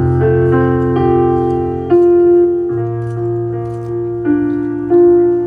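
Slow keyboard music: held piano-like chords that change every second or two, with a firmer new chord about two seconds in and another near the end.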